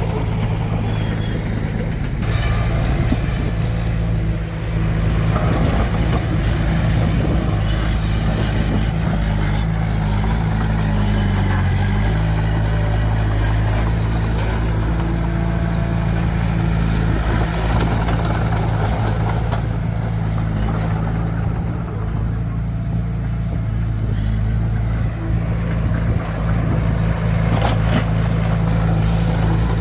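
A heavy vehicle's diesel engine running steadily with an unbroken low hum, its pitch wavering briefly a little before halfway.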